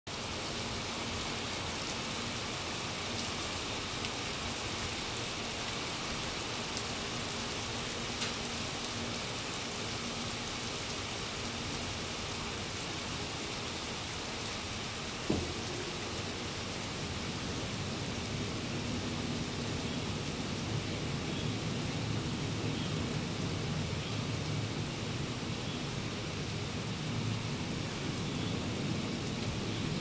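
Steady rain falling, an even hiss. A single sharp knock comes about halfway through, and a low rumble builds through the second half.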